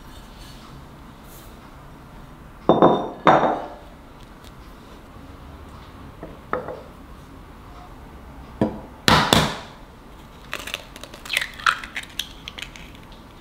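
Hands handling a ceramic mixing bowl, with two loud knocks and clinks about three seconds in. Later an egg is knocked sharply against the bowl and cracked, followed by small crackles as the shell is pulled apart and the egg drops onto the flour.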